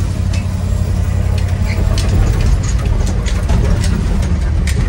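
Ford F600 truck's engine running, heard from inside the cab as a steady low drone, with scattered sharp clicks and knocks over it.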